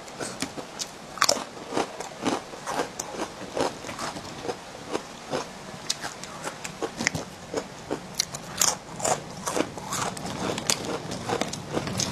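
Crispy rice crackers (guoba) being bitten and chewed: an irregular run of sharp, dry crunches, several a second.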